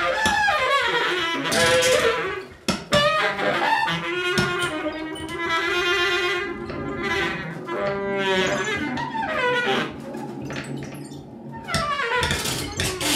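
Free-improvised music led by a baritone saxophone, playing wavering and gliding tones with sloping pitch runs, among the trio's electronic sounds. There is a sudden dip and a sharp click about three seconds in.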